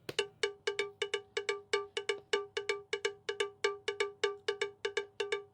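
Background music: a quick, even run of the same short, bell-like pitched note, about five strikes a second, like a cowbell or woodblock tapping out a steady beat.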